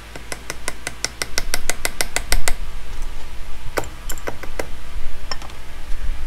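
Hammer taps on wood, sharp and quick at about six a second for a dozen strokes, then a pause, four slower knocks and one last tap, as a replacement leg is worked into a stump table with a hatchet and a small hammer.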